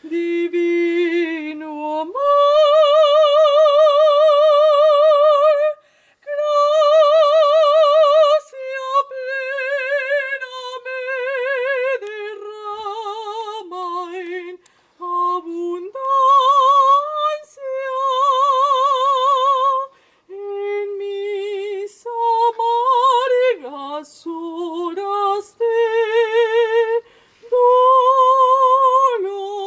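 A woman singing solo without accompaniment, holding long notes with a wide vibrato, with short breaths between phrases.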